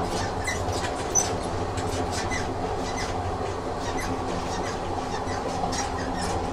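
Train sound effect: a train running steadily on the rails, a low rumble with a continual patter of light wheel clicks.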